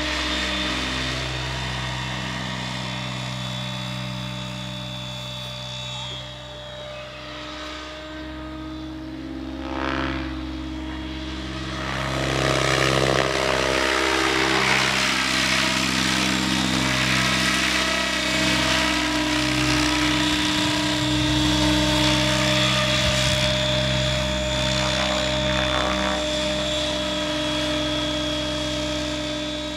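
Radio-controlled T-Rex 800 helicopter carrying a spray tank, its main and tail rotors whining steadily in flight. The pitch shifts and the sound grows louder about twelve seconds in as it flies close.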